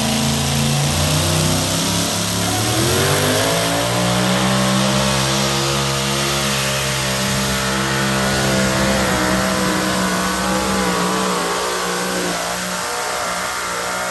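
Modified pulling tractor's engine at full throttle dragging a weight-transfer sled: the revs climb over the first few seconds, then hold high and steady through the pull.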